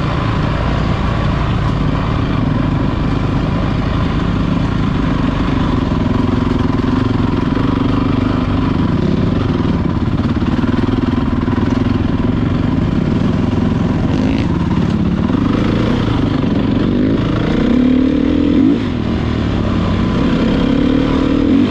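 Motocross motorcycle engines running continuously, revving with the pitch rising and falling through the last several seconds.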